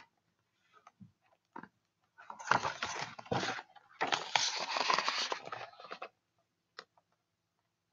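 Rustling and handling noise from a hardcover picture book being lifted and shifted close to the microphone, in two bursts of about one and two seconds, with a few small taps around them.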